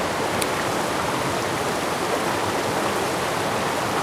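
Mountain headwater stream rushing steadily over rocks, with one brief click about half a second in.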